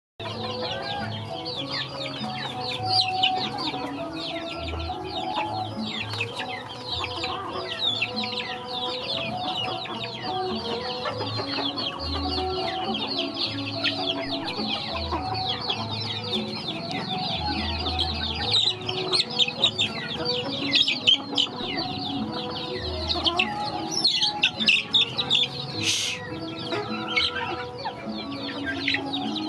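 A flock of young chickens peeping and clucking constantly, many short high chirps overlapping. Soft background music runs underneath. A brief harsher, louder call comes near the end.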